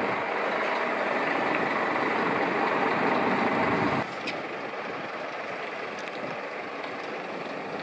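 Heavy truck's diesel engine running as it hauls a low-loader trailer, loud and close, then suddenly quieter and more distant after about four seconds.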